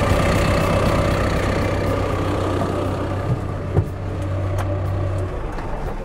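Cat F2 backhoe loader's diesel engine idling steadily, then cutting off about five seconds in as the engine is shut down. There are a couple of short knocks just before it stops.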